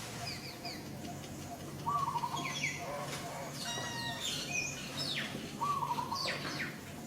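Birds chirping and calling: quick high chirps and falling whistles, with a short lower call heard twice, about two seconds and six seconds in.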